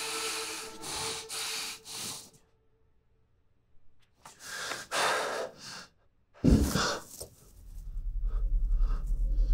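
A man's heavy, frightened breathing in quick breaths, breaking off for about a second and a half, then starting again. About six and a half seconds in comes a sudden low thump, followed by a deep rumble that grows louder toward the end.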